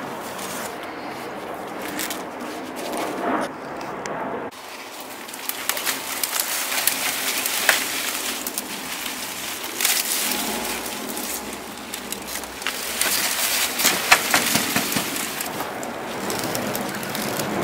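Leafy garden plants rustling as they are handled, cut and pulled up from the soil by hand, with a bird calling in the background.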